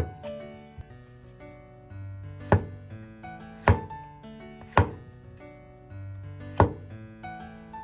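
A cleaver chopping through shiitake mushrooms onto a wooden cutting board: five sharp knocks, spaced one to two seconds apart. Light piano music plays underneath.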